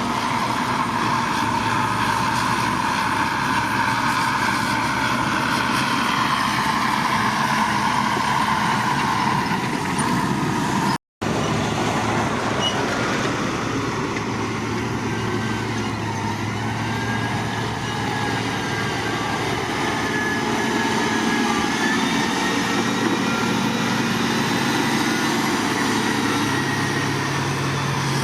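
Diesel engines of heavy earthmoving machinery running steadily under work, with a momentary dropout about eleven seconds in.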